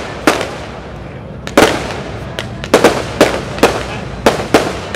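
Aerial firework shells bursting one after another: about seven sharp bangs, each echoing briefly, with a pause of about a second after the first.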